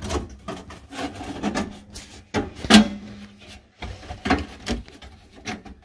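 Sheet-metal combustion chamber cover being worked onto a boiler's casing by hand: scraping and rubbing of metal on metal, broken by a series of clanks. The loudest clank comes nearly three seconds in and rings briefly.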